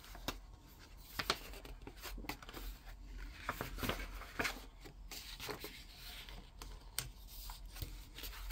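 Glossy pages of a large hardcover book being turned by hand: soft paper rustling and sliding, with a few short, sharp flaps and taps as pages fall.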